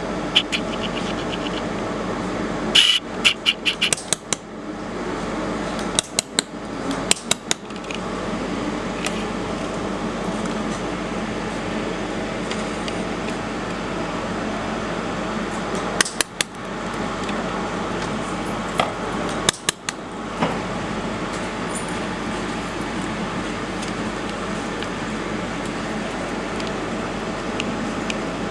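Steady whirring hum of a fiber laser welding machine's cooling fan and chiller running, broken four times by short runs of sharp clicks and snaps.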